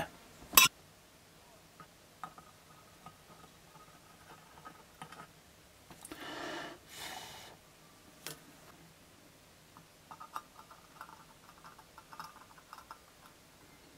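Sparse small clicks and taps of hand tools at a soldering job, metal tweezers and a helping-hands clip knocking against a tin lid, with one sharper click just after the start and a run of faint ticks near the end. A short, soft rushing noise comes about halfway through.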